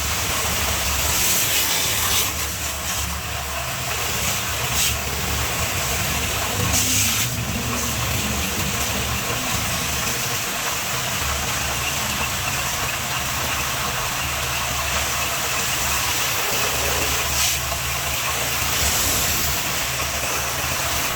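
High-pressure water spray hissing as it rinses soap off a car's engine bay, brightening in short spells as the jet is swept across surfaces. A steady low motor hum runs underneath and drops out briefly a few times.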